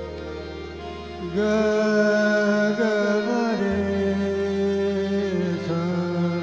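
Harmonium playing held notes. About a second in, a man's singing voice comes in over it with a long, wavering held note.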